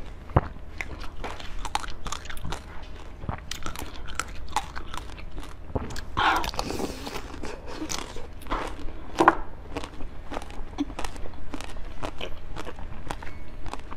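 Close-miked biting and crunching of a coated ice-cream bar: crackling chews throughout, with the loudest bites about six and nine seconds in.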